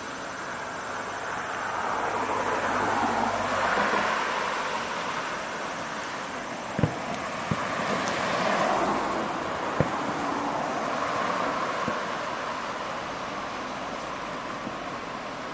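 Aerial fireworks shells bursting in the distance: a few sharp bangs in the second half, over a steady rushing background noise that swells and fades.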